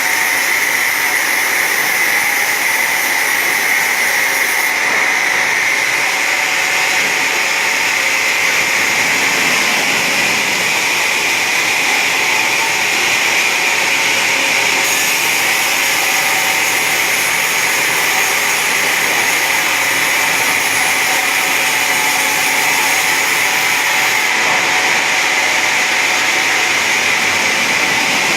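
Automatic wood-sawing machine running steadily, a continuous even machine noise.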